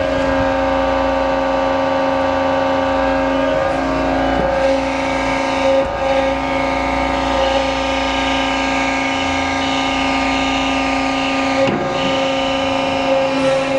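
Cincinnati hydraulic press brake running with a steady hydraulic pump whine while the ram is cycled through its strokes, with brief changes in the sound about 4, 6 and 12 seconds in as the ram shifts direction.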